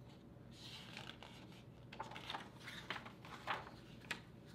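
Pages of a hardcover picture book being turned by hand: a faint paper rustle in several short swishes, ending with a sharp tap about four seconds in.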